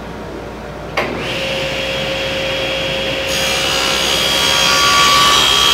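SawStop cabinet table saw switched on about a second in, its motor running up with a steady hum and whine, then the blade ripping a sheet of plywood along the fence, the sound growing louder and brighter as the cut goes on.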